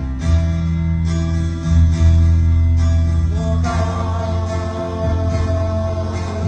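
Music with guitar: held, layered notes that grow fuller about three and a half seconds in.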